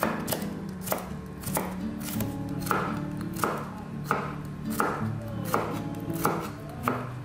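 Chef's knife mincing garlic cloves on a wooden cutting board, the blade knocking the board in a steady rhythm of about three strokes every two seconds, over background music.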